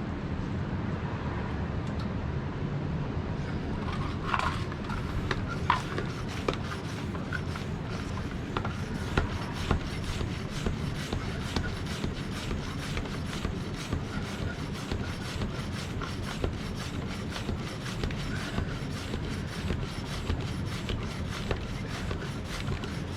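A bicycle tyre being inflated with a pump: a steady air-pump noise with a regular clicking that starts about four seconds in. A few sharp pops come in the first ten seconds, typical of tubeless tyre beads snapping onto the rim as it takes air.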